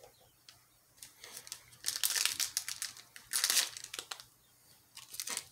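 Foil wrapper of a 2020 Panini Rookies & Stars trading-card pack being torn open by hand, crinkling in short bursts from about a second in, loudest about two seconds in and again about three and a half seconds in.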